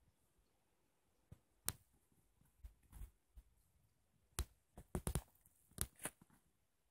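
About a dozen sharp, irregular clicks and knocks over an otherwise very quiet background. They start about a second and a half in and come thickest in a quick cluster near the end.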